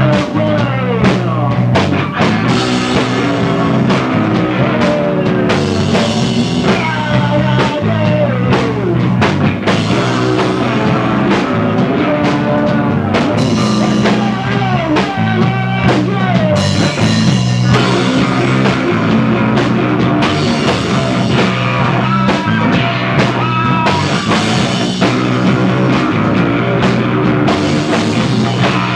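A no-wave punk rock band playing loud and without a break: a drum kit hit densely throughout, a steady bass guitar line and electric guitar, with pitches sliding up and down over the top.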